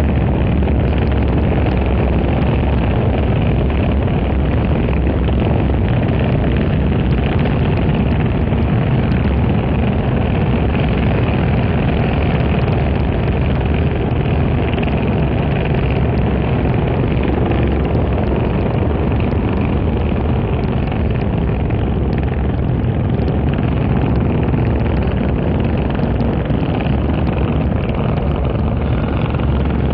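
Racing motorcycles running at speed past the trackside wall, a steady engine noise mixed with heavy wind rumble on the microphone.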